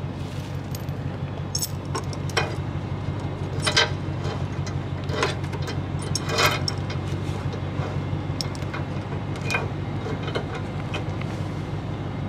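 A steel chain clinking and rattling in irregular knocks as it is handled and hooked onto a pickup's receiver hitch. Under it runs a steady low engine idle, likely the Nissan Titan's 5.6-litre V8.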